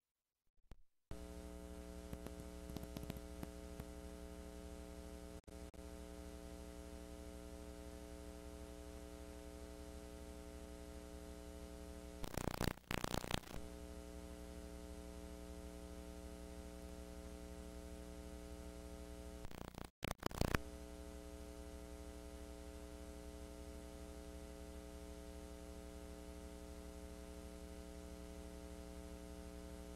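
Steady electrical mains hum with a stack of overtones on VHS tape playback audio, starting about a second in. It is broken twice, near the middle and about two-thirds through, by short bursts of loud static crackle.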